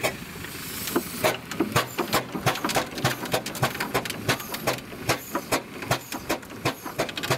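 Garrett single-cylinder steam traction engine working its winch under load, hauling in the wire rope. It chuffs in a steady, even beat of about three to four strokes a second.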